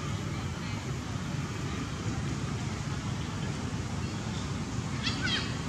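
Steady low rumble, with a short, high-pitched squeal from a young macaque near the end.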